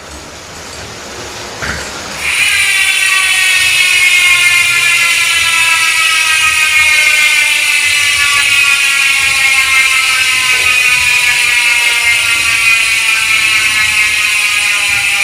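Maxzone Stroke 1.0 bicycle rear hub's three-pawl freehub ratcheting as the wheel freewheels. About two seconds in the rapid clicks merge into a loud buzz whose pitch falls slowly as the wheel slows.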